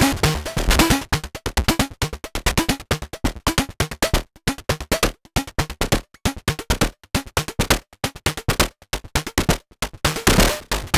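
Moog DFAM analogue percussion synthesizer playing a fast sequenced pattern of short percussive hits. About a second in the hits turn thin and clicky, and near the end they grow fuller again with pitched low thumps.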